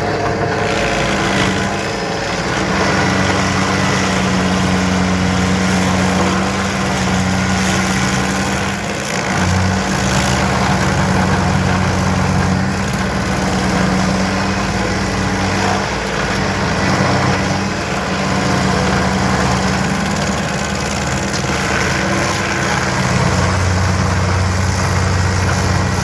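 Engine of tree-removal power equipment running steadily, with a low hum and a rough noisy rasp over it.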